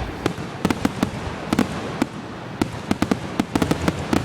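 Fireworks display going off in its grand finale: many sharp bangs and cracks in quick, irregular succession, some bunched close together, over a steady rumble.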